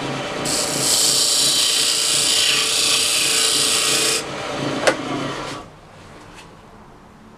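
Wood lathe running while a scraper cuts inside the bore of a spinning Ambrosia maple ring blank, a loud scraping hiss for about four seconds as the hole is brought to final size for a stainless steel ring core. Near five seconds there is a sharp click, and the lathe's running noise stops.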